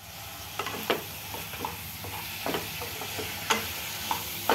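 Wooden spatula stirring sliced onions, tomatoes and garlic frying in oil in a coated kadhai, with irregular scrapes and taps against the pan over a steady sizzle.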